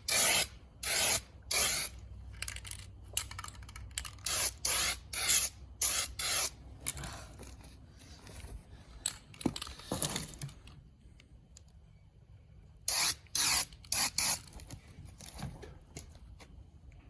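Aerosol spray paint can spraying in a series of short hissing bursts, each under half a second, with a pause of about two seconds past the middle before a few more bursts.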